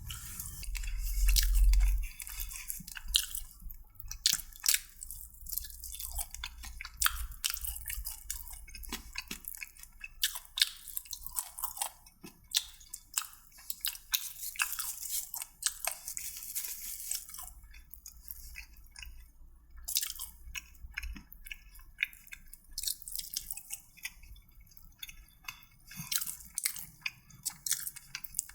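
Close-up eating sounds: chewing and biting food, with many wet, crackly mouth clicks coming irregularly. A brief low rumble in the first two seconds is the loudest part.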